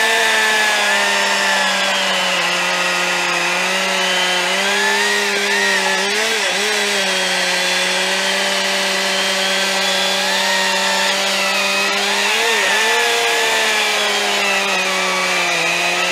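STIHL MS 261 C petrol chainsaw and STIHL MSA 300 battery chainsaw held at full throttle while cutting through logs side by side. The engine note stays steady and high, with brief dips in pitch about six seconds and twelve and a half seconds in.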